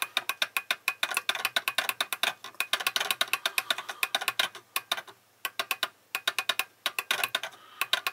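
Buzzer on an AT89C2051 clock-kit board giving a rapid run of short, sharp ticks, several a second, as the held minute button makes the clock auto-advance the minutes. The ticking breaks off briefly a couple of times a little past halfway.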